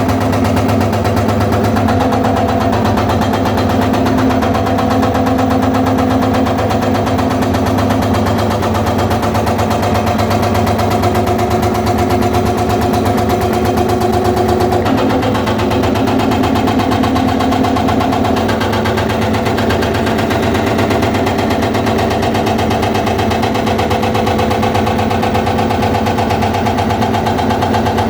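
Excavator-mounted hydraulic breaker hammering continuously on stone, a rapid chatter of blows over the steady running of the excavator's diesel engine.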